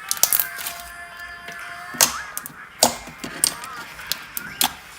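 Thick, stretchy slime being squeezed and worked by hand, giving several sharp popping clicks as trapped air pockets burst, over faint background music.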